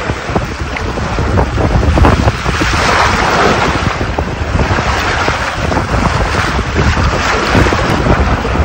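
Water rushing and splashing along the hull of a sailboat under sail, a 1988 O'Day 322, with heavy wind buffeting on the microphone.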